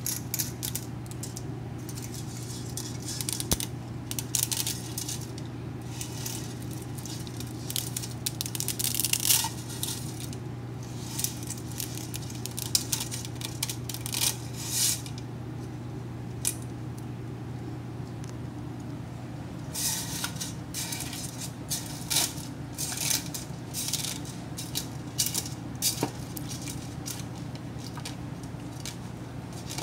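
Kitchen handling noises: pots and utensils clinking, scraping and knocking in two busy stretches, over a steady low hum.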